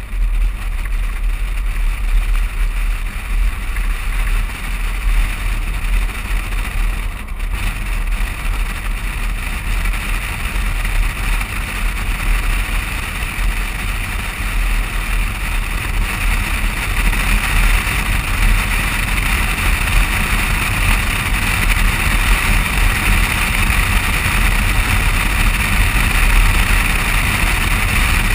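Rushing wind and road noise picked up by a camera mounted on the outside of a moving car, over a deep steady rumble. It grows a little louder about 17 seconds in.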